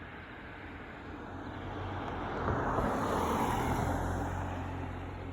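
A vehicle passing by: a steady low engine hum with tyre and road noise that swells to a peak about three seconds in, then fades.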